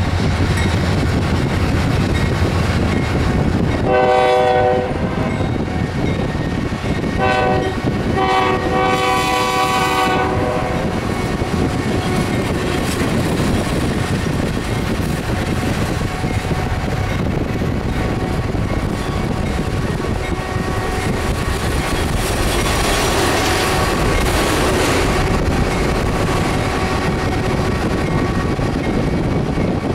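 Diesel freight locomotives running past with a steady rumble, their multi-note horn sounding three times: a blast about four seconds in, a short one about seven seconds in, and a longer one ending about ten seconds in.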